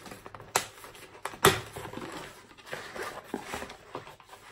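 Cardboard parcel being opened and unpacked by hand: rustling and scraping of cardboard and packaging, with scattered sharp knocks, the loudest about one and a half seconds in.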